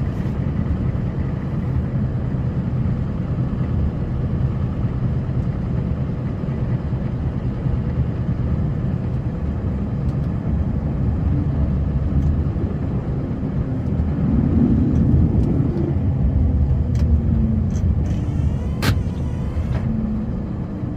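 Snow-plowing vehicle's engine running with a steady low rumble as it drives and plows, a little louder for a few seconds past the middle, with a few clicks and a sharp knock near the end.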